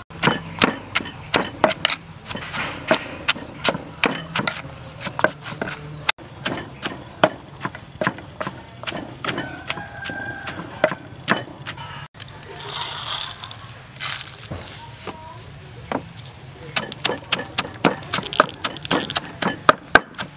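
A wooden pestle pounds repeatedly in a clay mortar, bruising and mixing a shredded green papaya salad. The knocks are sharp and fall at about two to three a second, with two short breaks.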